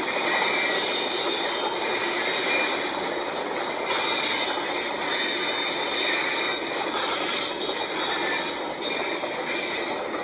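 Locomotives running on rails with a steady metallic screech of the wheels over the continuous rumble of the train.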